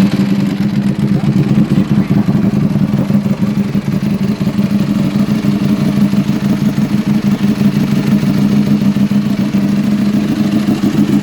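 Ducati Desmosedici RR's 989 cc V4 engine idling steadily, freshly started, with a fast, even pulsing beat.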